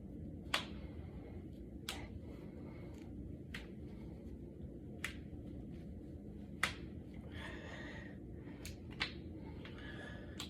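Finger joints and knuckles being cracked: about eight sharp single pops, one every second or two, the loudest about a second in and again about two-thirds through.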